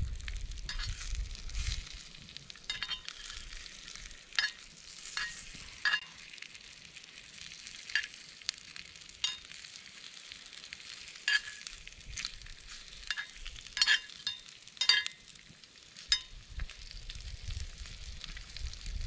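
Food sizzling in a frying pan, a steady hiss with irregular sharp pops and crackles.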